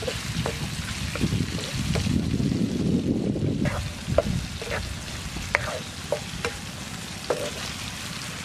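Chicken liver with chilli frying in a pan, with a steady sizzle, scattered sharp knocks of the knife and spatula, and a stretch of louder stirring rustle about two seconds in.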